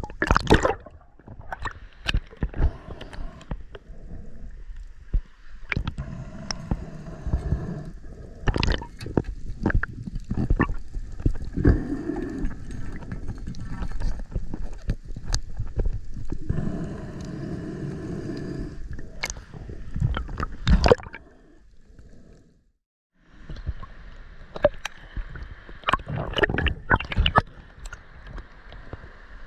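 Muffled water noise heard through an underwater action camera's housing, gurgling and sloshing, with many sharp clicks and knocks from the speargun and handling. It drops out briefly about two-thirds of the way through.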